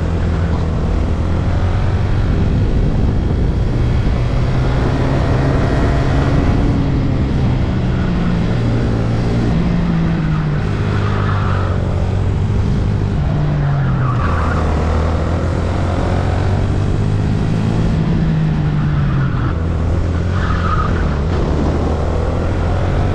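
Onboard sound of a VT250 racing kart's engine at speed. The engine note climbs as the kart accelerates and drops back as it slows for corners, several times over.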